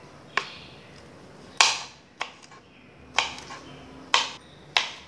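Kitchen knife cutting okra on a bamboo cutting board: six sharp chops, roughly one a second and unevenly spaced, each one the blade going through the pod and striking the board.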